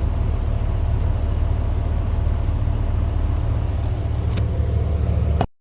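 A steady low mechanical rumble, like a motor or engine running, with a couple of light clicks near the end, cut off abruptly.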